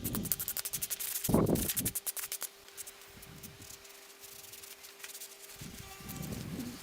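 Rapid back-and-forth scraping strokes for about the first two seconds, then fainter rubbing, over a faint steady hum.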